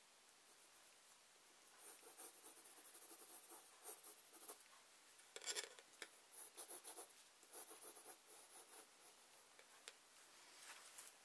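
Pencil drawing on paper: faint, short scratchy strokes in irregular runs, starting about two seconds in.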